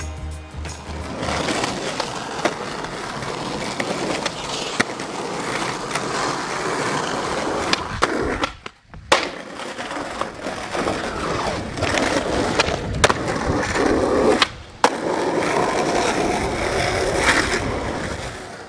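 Skateboard wheels rolling on pavement, a continuous gritty rumble, broken by several sharp wooden clacks of the board striking the ground. The sound cuts out briefly about halfway through.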